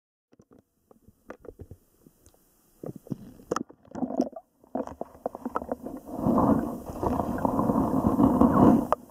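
Muffled underwater handling noise and water movement picked up by a submerged waterproof compact camera (Pentax WG-3): scattered knocks and clicks at first, then a dense, louder rumble from about six seconds in.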